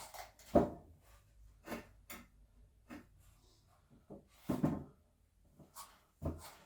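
A series of irregular knocks and clunks, as of things being handled and set down, with the loudest about half a second in and a cluster of them about four and a half seconds in.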